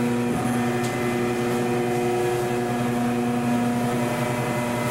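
Commercial pasta sheeting machine running, its electric motor and rollers giving a steady hum with several held tones as the dough sheet feeds out.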